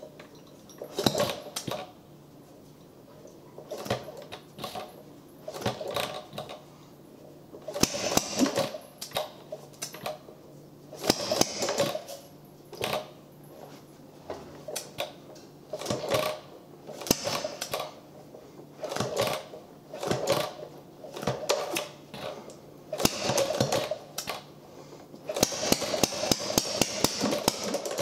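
A small Carlisle & Finch hit-and-miss gas engine being spun over by hand at its flywheels: short bursts of mechanical clatter from its gears and valve gear every couple of seconds as it turns but does not keep going. A few seconds before the end it catches and runs, a fast, even clatter.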